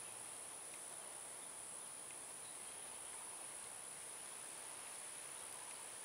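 Insects trilling steadily as one continuous high-pitched drone, faint, over a light background hiss.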